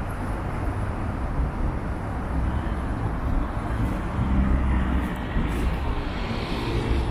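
Steady rumble of city street traffic, with a vehicle drawing nearer and getting louder over the second half.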